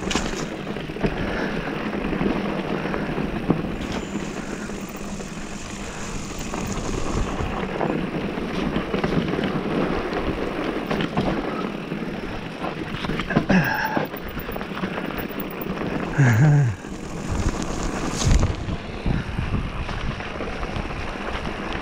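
Mountain bike rolling along a wet dirt trail: steady tyre and trail noise with scattered rattles and clicks from the bike, and wind on the microphone. Two short, louder pitched sounds come about 14 and 16 seconds in.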